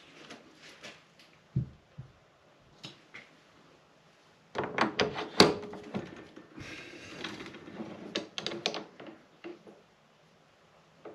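Metal clicks and clanks of a Vevor MX400 mini lathe's quick-change tool post as tool holders are swapped by hand during a tooling change. The loudest knock comes about halfway through, followed briefly by a scraping sound.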